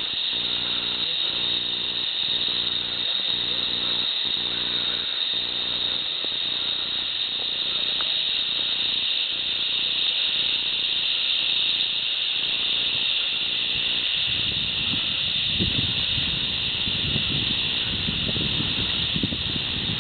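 A continuous, high-pitched drone of insects in chorus. A low rumble joins in during the last third.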